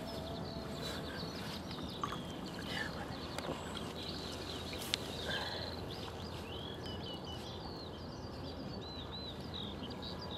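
Small birds singing with many short, quick chirps and trills over a steady low background noise, with one sharp click about five seconds in.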